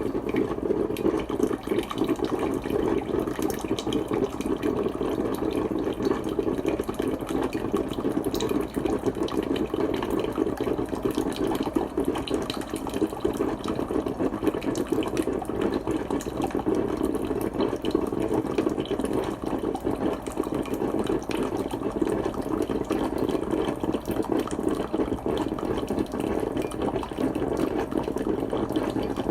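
Coffee percolator bubbling steadily, a dense run of small gurgles and pops with no let-up.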